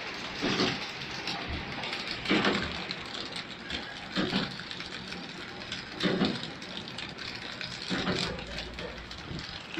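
Vista chikki flow wrap packing machine running: a steady mechanical whir with a louder swishing stroke that repeats about every two seconds.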